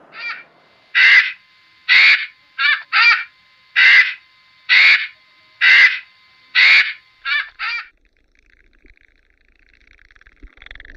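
A bird giving a series of harsh, crow-like caws, about one a second with a few in quick pairs, stopping about eight seconds in.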